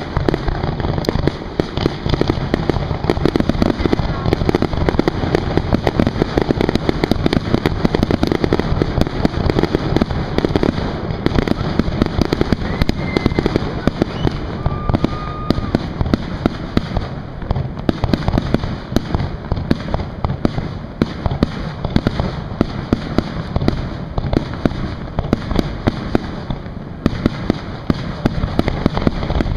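Fireworks display: a dense, unbroken run of bangs from bursting aerial shells, with crackling mixed in.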